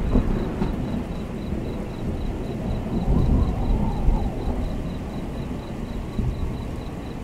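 Storm-at-sea sound-effect ambience: a steady low rumble of wind and surf breaking on rocks, swelling briefly about three seconds in.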